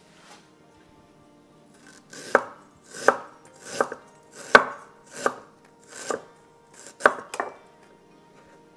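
Chef's knife slicing a piece of fresh ginger on a wooden cutting board: about seven sharp cuts starting about two seconds in, roughly one every three-quarters of a second, each stroke ending in a knock of the blade on the board.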